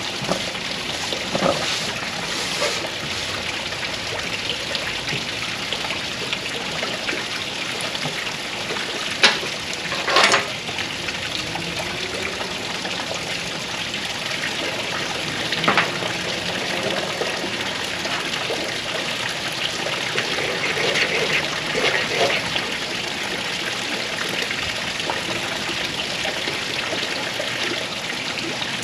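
A ferrocerium rod scraped along a wooden feather stick to throw sparks into its curls, with a few sharp scrapes standing out about 9, 10 and 16 seconds in. A steady rushing noise runs underneath throughout.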